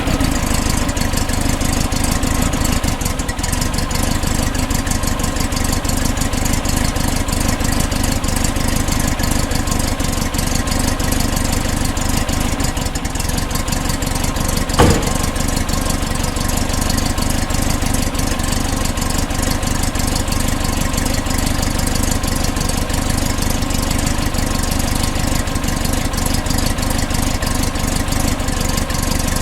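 Rebuilt 1968 Porsche 912 air-cooled flat-four engine running steadily, with no revving, and one sharp click about halfway through.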